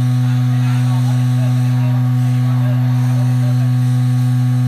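Vibratory stress relief exciter of an HB3000+ system running at a steady speed. It makes a loud, even low hum with a second, higher tone above it.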